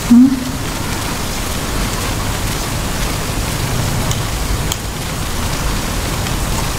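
A steady, even rushing noise like rain or hiss, with a brief low hum-like sound right at the start.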